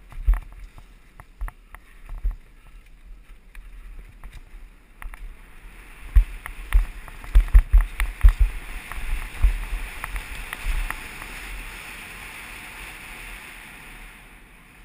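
Mountain bike descending a dirt trail, rattling and knocking over bumps, with wind buffeting the camera microphone. From about ten seconds in it settles into a steady hiss of tyres rolling on smoother pavement.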